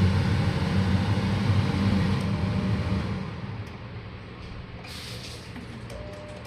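Kitchen chimney hood's exhaust fan motor running with a steady hum, which drops away to a much quieter hum about three seconds in, with a few light clicks near the end.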